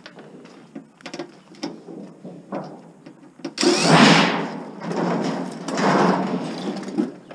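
A Sony multi-disc CD player being handled: light clicks and knocks, then two louder scraping rushes, about four and six seconds in, as the unit is moved over a work surface.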